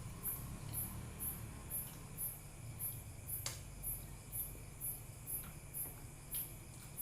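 A cricket chirping steadily in short, high-pitched chirps, about two a second, over a low steady hum. There is a single sharp click about halfway through.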